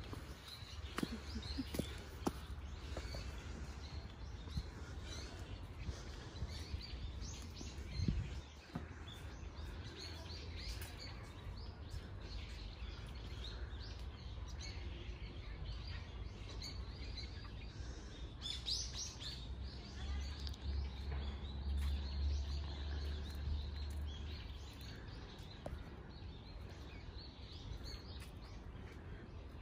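Birds chirping and calling, many short calls throughout, over a steady low rumble that swells about two-thirds of the way through. A few dull thumps near the start and one louder one about eight seconds in.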